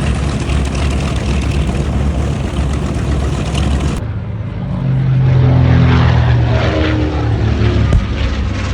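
Twin radial piston engines of a B-25 Mitchell bomber (PBJ-1J) running. About four seconds in the sound cuts to a louder engine drone whose pitch falls slightly as the aircraft passes.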